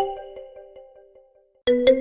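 Smartphone's default ringtone, a chiming melody of short struck notes: its last note rings out and fades to silence, then the melody starts over about one and a half seconds in.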